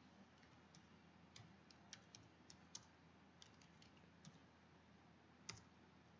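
Faint computer keyboard typing, a few soft key clicks at uneven spacing, with one louder click about five and a half seconds in.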